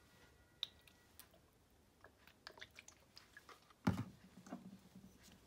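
Faint small clicks and taps as a plastic squeeze bottle of sauce is handled and squeezed over chicken pieces in a ceramic bowl, then one louder knock just before four seconds in as something is set down on the counter.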